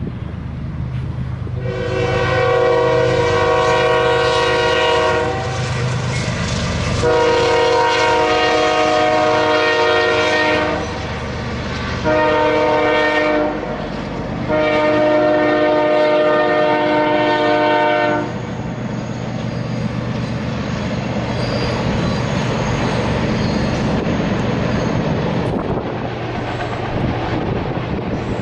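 Locomotive air horn sounding the long, long, short, long grade-crossing signal, each blast a chord of several steady pitches. Under it runs the steady low rumble of a passing train, which carries on as a rushing rumble after the horn stops.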